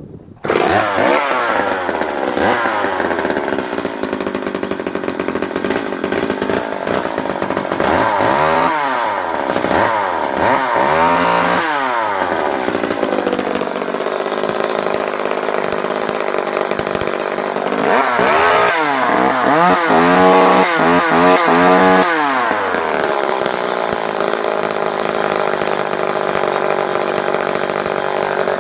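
Small two-stroke engine of a vintage JoBu SL2 34cc top-handle chainsaw running at speed. It comes in loud abruptly just after the start, then is revved up and down in a few quick blips about a third of the way in and again about two-thirds of the way in.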